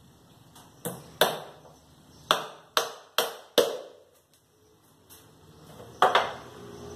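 Claw hammer driving a nail into pallet wood: a run of about six sharp, ringing strikes, then a pause and two quick strikes near the end.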